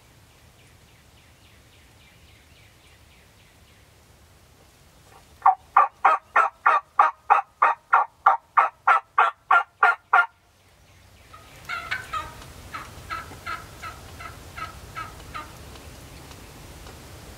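Turkey yelping: a long, even series of short yelps at about three or four a second, loud and close, followed after a short pause by a fainter second series. A fainter run of yelps comes before them, near the start.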